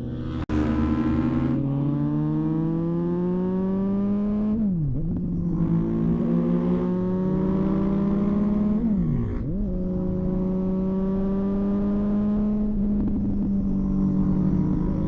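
Motorcycle engine accelerating up through the gears: its pitch climbs steadily, drops sharply at two upshifts about five and nine seconds in, then holds steady at cruising speed. A brief break in the sound comes just after the start.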